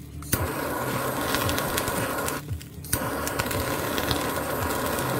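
Butane kitchen torch burning with a steady hiss as it sears slices of chashu pork on a bowl of ramen. The flame stops briefly at the start and again about halfway, coming back with a sharp click.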